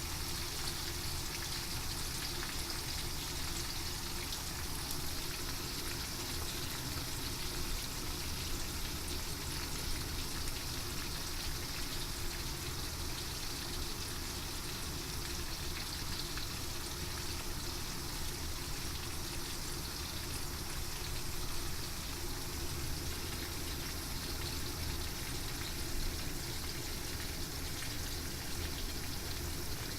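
Horse mackerel frying in hot oil: a steady sizzle with small crackles throughout.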